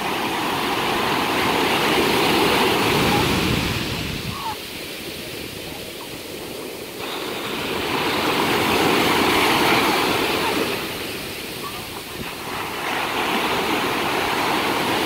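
Ocean surf: waves breaking and washing up the shore, in three loud swells with quieter lulls about four and eleven seconds in.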